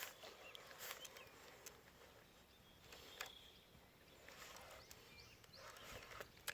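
Near silence: faint outdoor ambience with a few soft clicks and taps scattered through it and one or two brief, faint high chirps.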